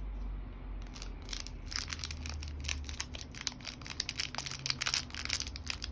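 Slime being squeezed and worked by hand, giving a rapid run of crackling, crunching clicks that starts about a second in and grows denser.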